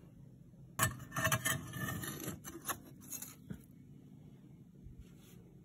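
Metal scoop scraping ash and soot off the brick floor of a stove's firebox, with a few knocks and scrapes. It starts abruptly about a second in and dies away after about three and a half seconds.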